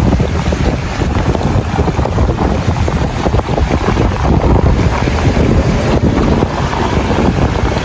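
Wind buffeting the microphone, a loud low rumble that rises and falls unevenly and covers the other sounds.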